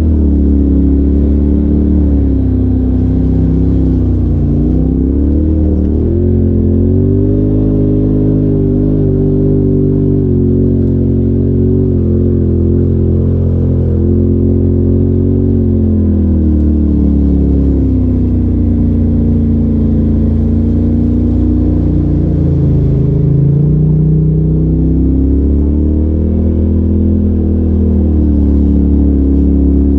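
A Polaris RZR side-by-side's engine running, heard from inside the open cab as it is driven along a rough trail. Its pitch rises and falls repeatedly with the throttle.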